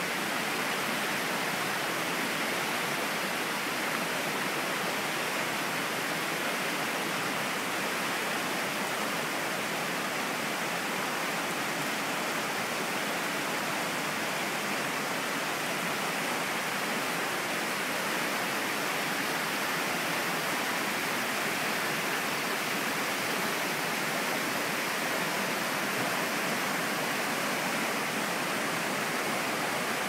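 Clear spring-fed mountain stream rushing over rocks and small rapids: a steady, even rush of water with no breaks.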